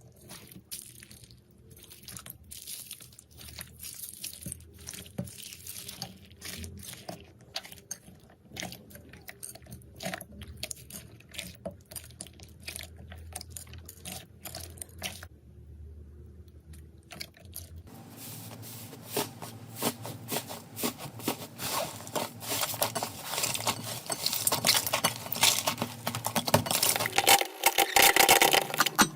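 Slime being pressed, poked and stretched by hand, giving scattered crackles and clicks; about two-thirds of the way in it turns to a dense crackling that grows louder toward the end.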